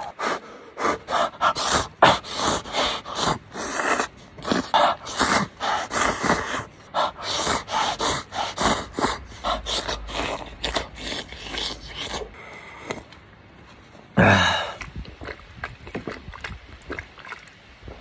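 Instant noodles being slurped from a cup in many quick, sharp sucks for about twelve seconds. A single loud breathy vocal exhale follows a couple of seconds later.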